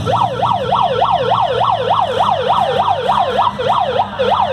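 Electronic siren in a fast yelp, its pitch sweeping up and down about four times a second, starting suddenly, over the low running of demolition derby car engines.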